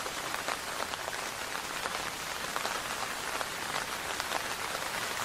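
Rain falling into standing water on muddy ground: a steady hiss full of small drop splashes.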